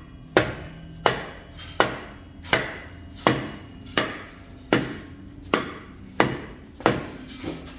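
Brake drum being struck over and over at an even pace, about one blow every 0.7 s, each knock ringing briefly, to work it onto brake shoes adjusted so tight that the drum is a tight fit.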